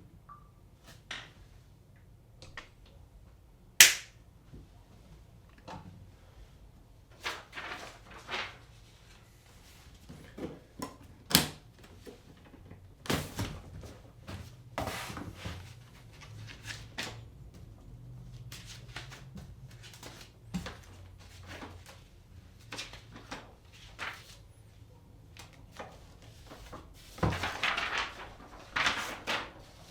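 Typewriter keys striking the paper one at a time, in irregular bursts with pauses between them, a few strokes much louder than the rest, and a denser run of clatter near the end.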